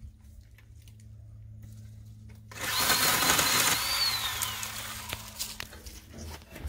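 Electric pole saw cutting through a crepe myrtle branch: a loud burst of saw noise starts about two and a half seconds in, with a high whine that rises and then falls, dying away over the next couple of seconds. A low steady hum runs underneath.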